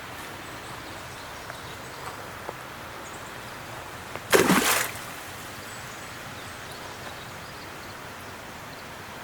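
Steady outdoor background hiss with a few faint ticks, broken once by a loud, brief noise lasting about half a second, a little over four seconds in.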